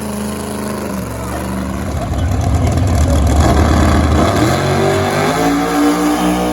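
Drag race car engines running hard down the strip: a loud, rough engine blast that peaks about three seconds in, then an engine note climbing in steps, as through gear changes.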